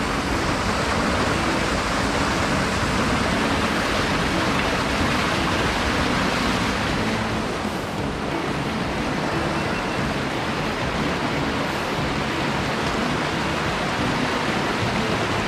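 Mountain headwater stream rushing and splashing over rocks in a small cascade, a steady loud wash of water.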